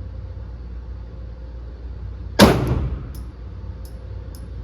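A single 9mm Glock pistol shot about halfway through, with a short echoing tail, followed by a few faint sharp ticks.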